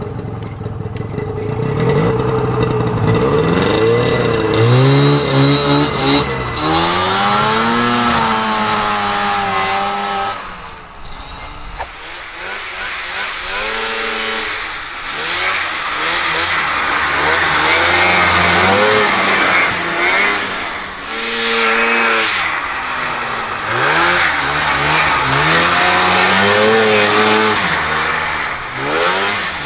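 Vintage Polaris snowmobile's two-stroke engine being ridden, revving up and easing off again and again, its pitch climbing and dropping with the throttle and dipping briefly near the middle.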